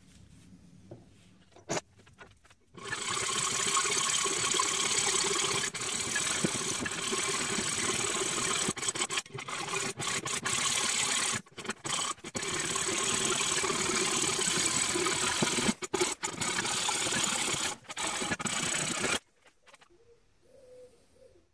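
Hand hacksaw cutting through a bar of O1 tool steel clamped in a vise, a steady rasping of the blade on the metal. It starts about 3 seconds in, pauses briefly a few times, and stops a couple of seconds before the end.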